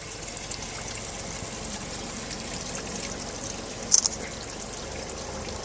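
Mountain spring water running and trickling steadily. A brief high-pitched sound cuts in about four seconds in.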